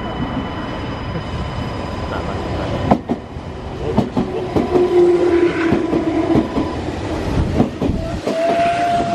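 Meitetsu stainless-steel electric commuter train passing close by. It opens with a sharp knock about three seconds in, then its wheels clatter over the rail joints in quick succession, with a steady drone in the middle and a higher held tone near the end.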